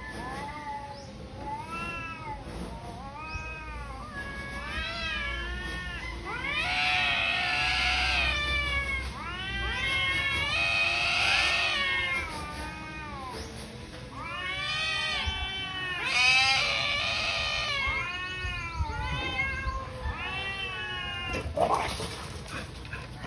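Two domestic cats caterwauling at each other in a fight standoff: long, wavering yowls that rise and fall in pitch, one after another, loudest in the middle. Near the end a short, sharp noise comes as one cat springs away.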